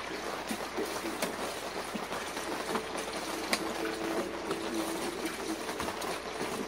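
Water running into the wash tub of a twin-tub portable washing machine as it is filled, a steady splashing.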